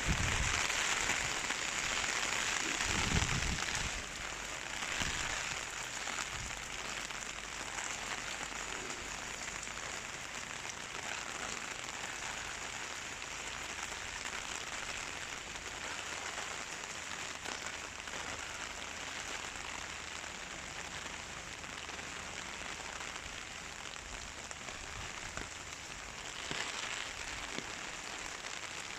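Heavy rain pouring steadily in strong wind. It is louder in the first few seconds, with a low gusting rumble about three seconds in, then settles to a steady downpour.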